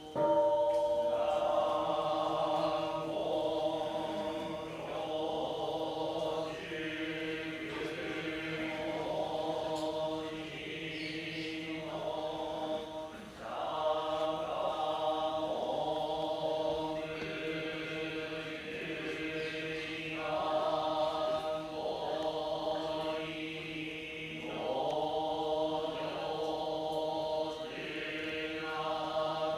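Buddhist monks chanting a sutra together, starting abruptly and going on in long phrases broken by short pauses.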